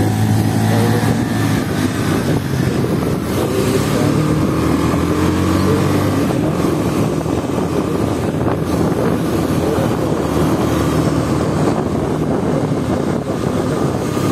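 KTM motorcycle engine running under way as the bike is ridden, its pitch climbing slowly in the first few seconds, with wind rushing over the microphone.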